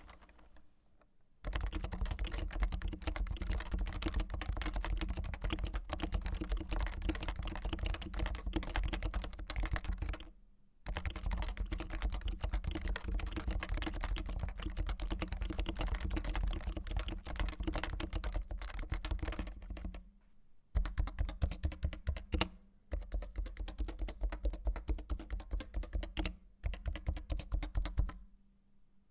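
Typing on a CM Storm Novatouch TKL's Topre-style capacitive rubber-dome switches with stock ABS keycaps and no silencing rings. Fast continuous typing in long runs broken by two short pauses, and near the end a run of single evenly spaced keystrokes.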